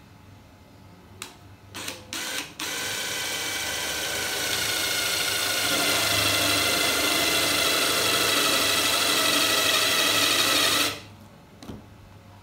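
Cordless impact driver with a spade bit boring into bengkirai hardwood to recess a hole for a bolt head. A few short trigger blips come first, then about eight seconds of continuous running with the impact mechanism clattering, louder about halfway. It stops suddenly near the end.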